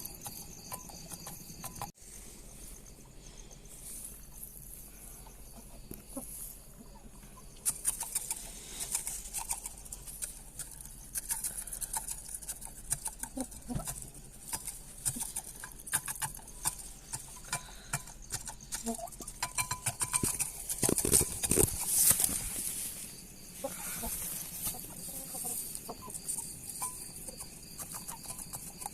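Kept birds calling: many short clucks, chirps and clicks overlapping throughout. A louder noisy stretch comes about 21 seconds in.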